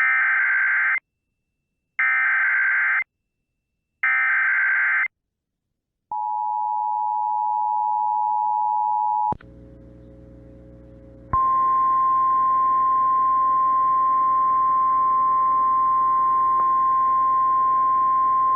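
Emergency Alert System sequence: three one-second bursts of warbling SAME header data about a second apart, then the two-note EAS attention signal for about three seconds. After a short stretch of low hum, the single steady NOAA Weather Radio warning alarm tone starts about eleven seconds in, heralding a tornado warning.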